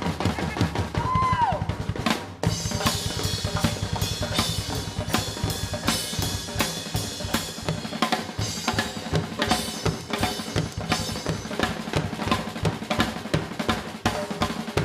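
Drums played live at a fast, dense pace, with cymbals ringing over rapid roll-like strikes; the playing breaks briefly about two seconds in, then picks up again.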